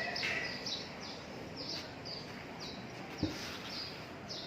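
A small bird calling over and over, short high chirps that slide downward, about two to three a second. A single soft knock about three seconds in.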